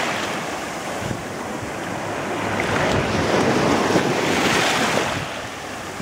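Small sea waves washing into the sandy shallows, the surf swelling to its loudest about three to five seconds in and then easing as the water draws back.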